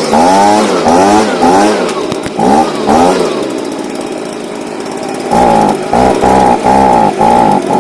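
Stihl BG55 leaf blower's small two-stroke engine revved in quick throttle blips, its pitch climbing and dropping again about twice a second. It settles to a lower, steadier run for about two seconds in the middle, then the blips resume. The blower is being run while its high-speed mixture screw is tuned after a carburetor replacement.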